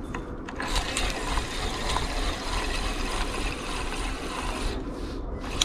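Large carp spinning reel being cranked steadily, its gears and line roller making a continuous fine mechanical whirr while a fish is being played on the line. The cranking stops about a second before the end.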